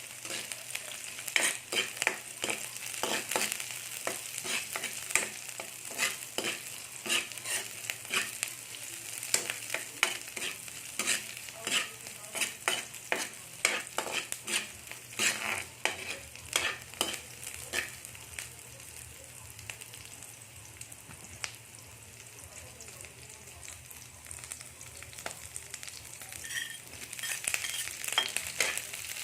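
Squid frying in oil in a pan: a steady sizzle with many sharp pops and crackles, which thin out over the last third.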